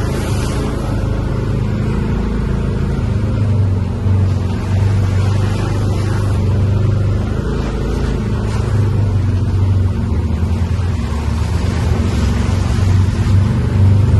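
A vehicle's engine running steadily at an even speed, a constant low hum with road and wind noise over it.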